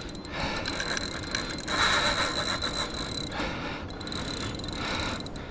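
Fishing reel clicking rapidly in several bursts of a second or so while a hooked catfish strains the bent rod.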